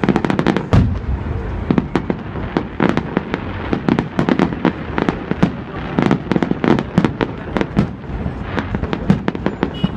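Fireworks display: a rapid, irregular barrage of bangs and cracks from shells bursting overhead, several a second, some sharply louder, over a continuous rumble.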